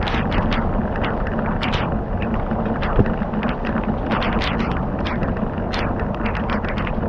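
Fire crackling, with many small irregular pops and one sharper pop about three seconds in, over a steady low rushing noise.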